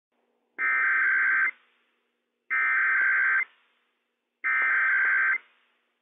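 NOAA Weather Radio SAME (Specific Area Message Encoding) header for a Required Weekly Test: three bursts of digital data tones, each just under a second long, about two seconds apart. This is the coded header that opens an Emergency Alert System message, with no long alert tone following it, as is usual for a weekly test.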